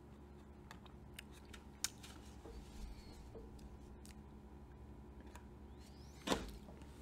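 Faint clicks and crinkles of snack packaging being handled, with one sharper click a little under two seconds in. A short sharp breath comes about a second before the end.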